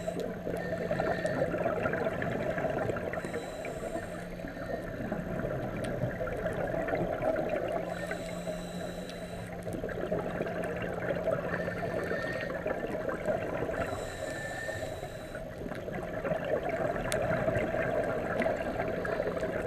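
Scuba diver breathing through a regulator underwater, heard through the camera housing: inhalations and bubbling exhalations that swell and ease in slow cycles every few seconds.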